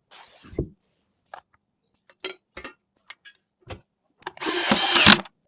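Scattered clicks and knocks of computer parts being handled and fitted during a PC build, then a louder, noisier burst lasting under a second near the end.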